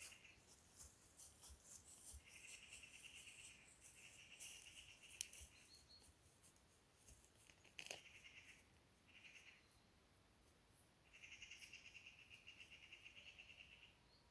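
Faint insect chirring over near silence: rapidly pulsed trains, each lasting from under a second to about three seconds, with a few small ticks between them.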